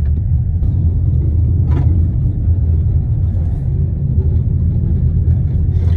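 Car driving slowly over a gravel track, heard from inside the cabin: a steady low rumble of tyres and engine, with one brief click about two seconds in.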